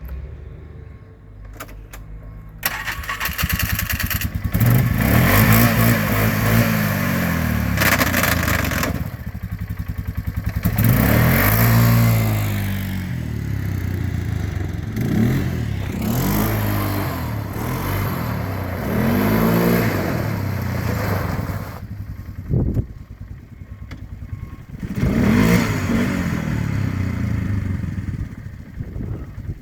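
ATV engine idling, then from about three seconds in revving and running under throttle, its pitch rising and falling again and again as it rides, easing off near the end.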